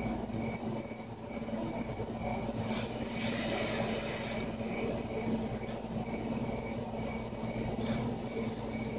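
Film ambience of insects chirping regularly, about twice a second, over a low steady hum.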